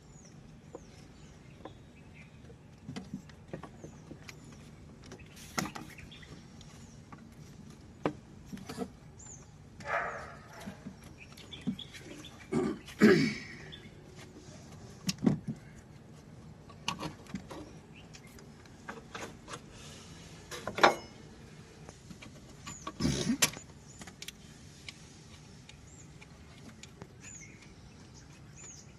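Scattered clicks, clinks and knocks from hands and tools working on a car, with a few louder short bursts midway and faint bird chirps now and then.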